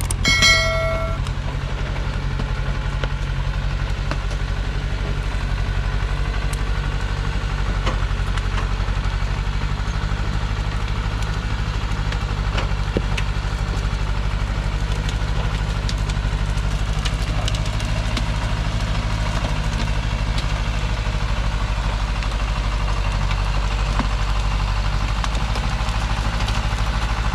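Diesel engine of a Thaco truck heavily loaded with acacia logs, running steadily as the truck moves slowly over cut brush. A short high-pitched tone sounds about half a second in.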